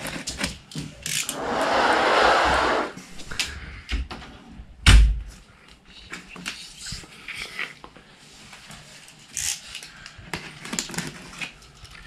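A cardboard box being handled and cut open, with scattered scrapes and clicks. A long hissing rush comes about a second in and lasts nearly two seconds, and a single heavy thump comes about five seconds in.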